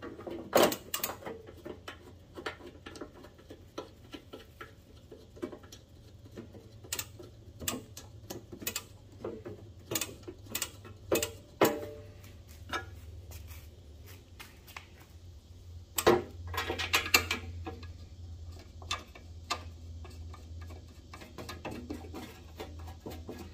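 Scattered light clicks and taps of a band saw's wheel-cover faceplate and its plastic star knobs being handled and threaded in by hand, with a faint steady low hum underneath.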